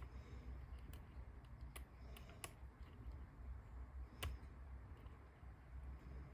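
Faint, scattered metallic clicks of a lock pick and tension wrench working the pin stack of an Ojmar coin-operated locker lock, about five clicks, the loudest about four seconds in.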